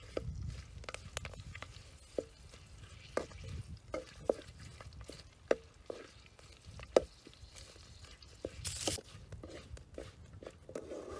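Metal ladle stirring and scraping leaves around a steel wok, with sharp metal-on-metal clinks against the pan about once a second and a brief hiss about three-quarters of the way through.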